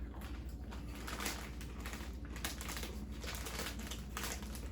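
Potato crisps being crunched while chewed, an irregular run of crackly crunches.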